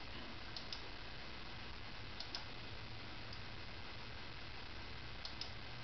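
A few faint computer mouse clicks, mostly in quick pairs, over a steady low hiss.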